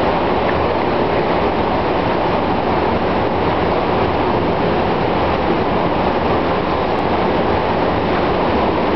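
Loud, steady rushing noise with no breaks or separate events, spread evenly from low rumble to mid hiss.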